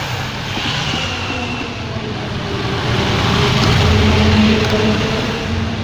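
Portable air conditioner running on its directly wired switch, its compressor and two fan motors together making a steady mechanical hum. The hum grows louder about three seconds in.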